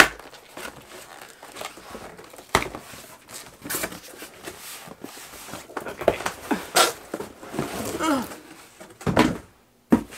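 Cardboard shipping box being opened and unpacked by hand: rustling and scraping of cardboard, broken by a few sharp knocks and thuds, the last one near the end.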